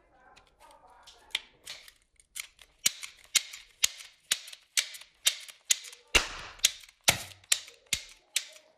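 Toy revolver being dry-fired: a run of sharp plastic trigger-and-hammer clicks at about two a second, with the cylinder turning between them.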